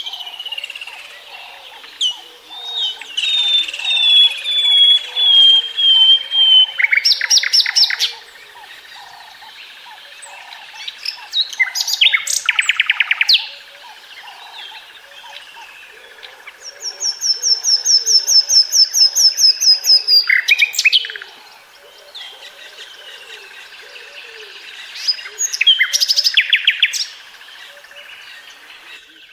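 Common nightingale singing in separate phrases with pauses between: a falling series of clear whistled notes, loud rattling bursts, and a long, fast, high trill. Fainter, lower repeated calls run in the background.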